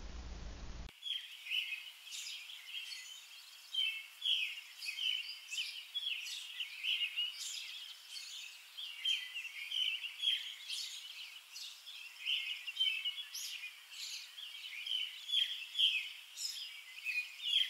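Songbirds chirping and singing, a busy stream of short, high calls that begins about a second in.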